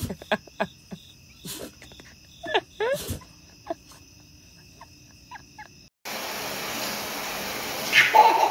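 Night insects trilling steadily in high tones, with a string of short sharp yips from a fluffy white puppy, the loudest a few rising ones about two and a half to three seconds in. About six seconds in this gives way to a steady hiss of water running from a bathtub tap.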